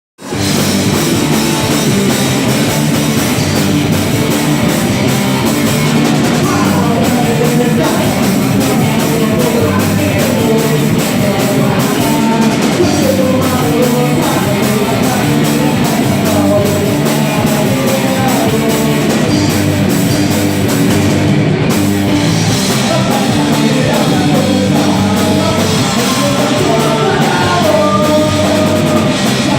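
Rock band playing loud and steady, with a drum kit and a singing voice over the band, starting abruptly at the very beginning.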